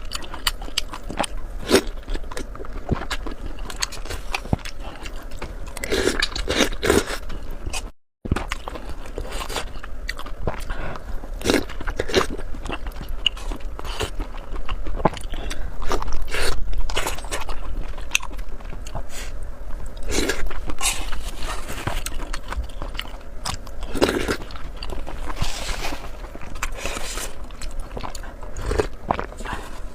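Close-miked eating: a person biting and chewing food, with irregular wet clicks and smacks and a brief break in the sound about eight seconds in.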